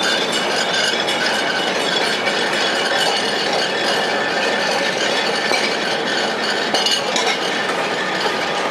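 Tram running along the street, a steady mechanical rattling and clanking with scattered clicks, amid city traffic noise.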